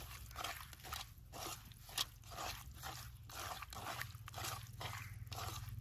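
Raw prawns being mixed with spice powders and salt in a bowl: a run of soft, short wet strokes, about two or three a second, with one sharper click about two seconds in.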